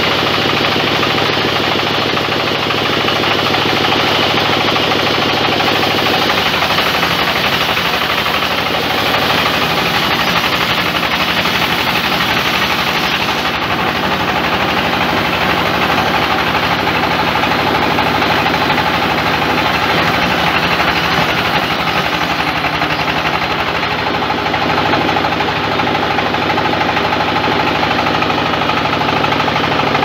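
Large belt-driven band sawmill running steadily with a fast, knocking pulse while its blade saws lengthwise through a big log.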